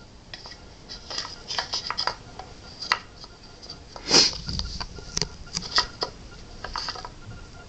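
Small wooden cubes of a Rody Brain Train treat-puzzle toy knocking and clicking against each other and its wooden frame, in an irregular run of sharp clicks with the loudest knock about four seconds in.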